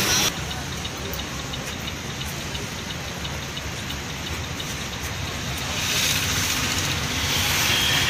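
Steady engine rumble and hiss heard inside a bus cabin, the stopped bus's engine running, growing a little louder about six seconds in.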